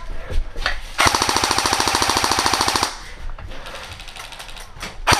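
Airsoft rifle firing on full auto: a few single snaps, then a rapid, evenly spaced burst of about two seconds starting about a second in, and another burst beginning near the end.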